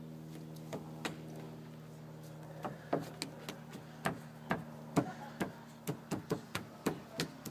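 A toddler's bare feet slapping on wooden deck boards: a run of irregular sharp taps, a few about a second in, then quicker and thicker from about three seconds in, over a steady low hum.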